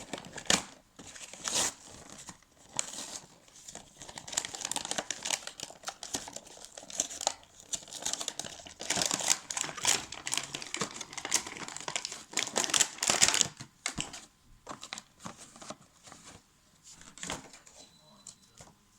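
Toy box packaging being torn open and handled, with dense crinkling and tearing for most of the time, thinning to occasional rustles and taps a few seconds before the end.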